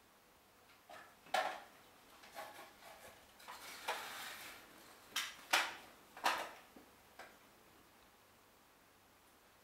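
A cat tussling with a plush cow toy on a tiled floor: a string of short knocks and scrapes as the toy's hard boots and the cat's paws hit and drag across the tiles.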